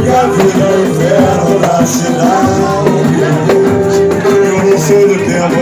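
Samba music with percussion and a bending melody line, a voice or voices singing along in places.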